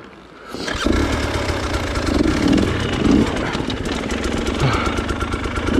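Off-road motorcycle engine that comes in about a second in and then keeps running, with several short swells of revs.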